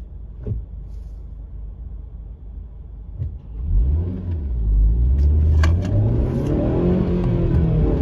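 Honda Civic Type R FN2's naturally aspirated 2.0-litre four-cylinder engine heard from inside the cabin, running low at first, then pulling away hard about three seconds in with the revs climbing steadily and easing off near the end.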